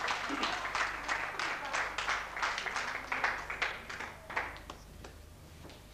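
Audience applauding; the clapping thins out and dies away about five seconds in.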